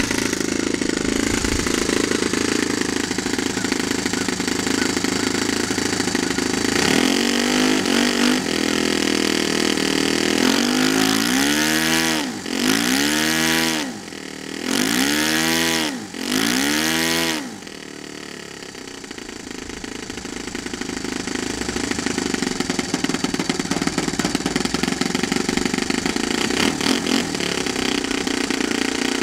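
Saito FA-65 four-stroke glow engine running on a model airplane on the ground. About a third of the way in it is revved up and back down several times in quick succession, then it drops to a lower speed and gradually builds back to steady running. The engine is new and still being broken in, and the owner suspects it caused the plane's dead-stick landings.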